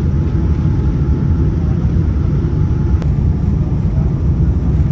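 Steady low rumble of engine and air noise inside the economy cabin of a Boeing 787 airliner, with a single sharp click about three seconds in.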